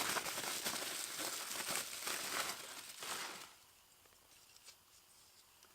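Plastic wrapping crinkling and rustling as a new car door handle is handled and unwrapped. It stops about three and a half seconds in.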